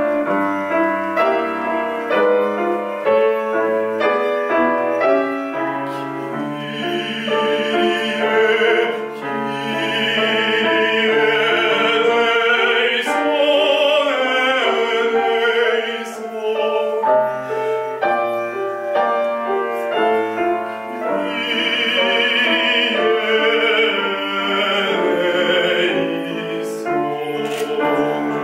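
A male singer singing in operatic style with a strong vibrato, accompanied by a grand piano. The piano plays alone at first, the voice enters about six seconds in, drops out for a piano passage around the middle, then comes back.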